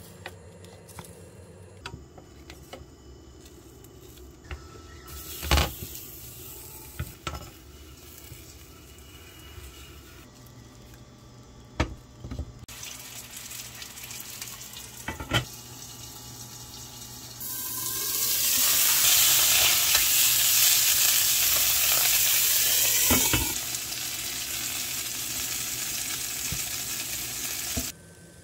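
Small whole fish frying in oil in a pan: a loud, dense sizzle sets in past the middle, then eases to a steadier, quieter sizzle and cuts off near the end. Before it there are a few sharp knocks of cookware on the cooktop.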